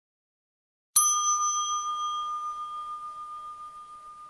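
A single elevator chime ding about a second in: one clear bell tone that rings on and slowly fades with a slight wavering.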